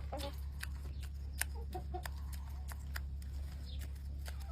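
A chicken clucking softly a few times, short quiet calls among small scattered clicks, over a steady low hum.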